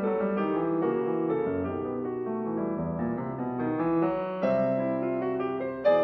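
Background piano music: a slow instrumental piece of held notes and chords, with a louder chord struck about four and a half seconds in.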